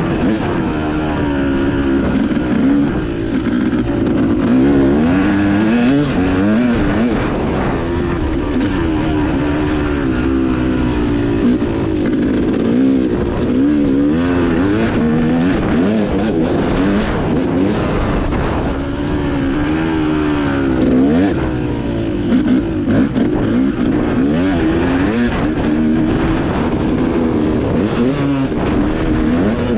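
Dirt bike engine being ridden hard on a motocross track, its pitch climbing and dropping over and over as the throttle is opened and rolled off through corners and jumps.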